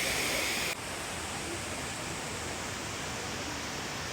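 Steady rush of water from a waterfall. About a second in it drops abruptly to a quieter, duller rush.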